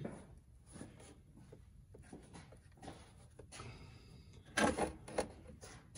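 Faint handling noise from fingers turning the oil drain bolt out of a compact tractor's engine oil pan, with a few short, sharper noises about four and a half to five seconds in.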